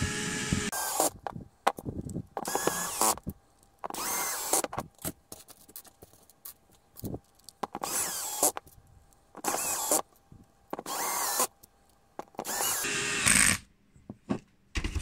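Cordless drill-driver whirring in short bursts of under a second, about seven times, as it drives M3 self-tapping countersunk screws into a 3D-printed plastic slewing-ring part.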